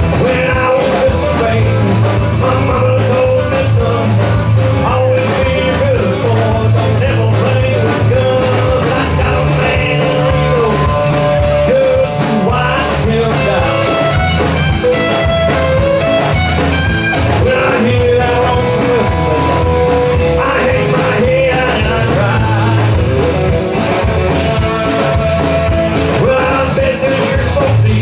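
Live band playing a song on amplified acoustic and electric guitars, bass guitar and drum kit.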